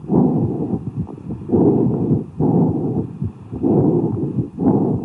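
Stethoscope recording of cavernous breathing, as heard over a tubercular lung cavity: low-pitched rushes of breath in and out, about five in all, each under a second.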